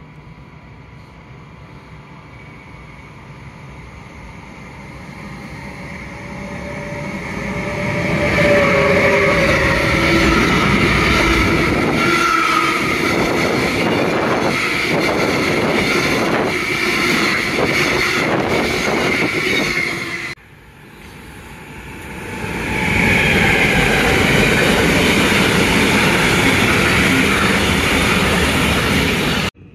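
Electric-hauled freight train of coal-dust wagons rolling past close by: the noise swells as it approaches, then the wagons' wheels clatter steadily over the rail joints. About two-thirds of the way through it cuts off suddenly, and a second electric-hauled freight train, a container train, rolls past just as loudly.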